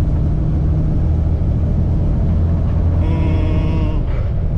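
Steady low drone of a Kenworth T680's PACCAR diesel engine heard inside the cab while the truck pulls in ninth gear. A brief steady tone sounds for about a second, roughly three seconds in.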